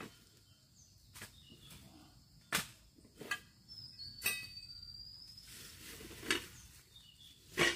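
A series of about seven sharp knocks at irregular intervals, the last the loudest, over a quiet rural background with a faint high whistle in the middle.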